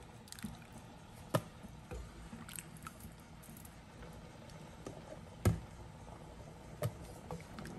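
A wooden spoon knocks against the rim of a plastic bowl and a pot as wet cornmeal is scraped into boiling water. There are a few sharp knocks, the loudest about five and a half seconds in, with small ticks and faint steady noise between them.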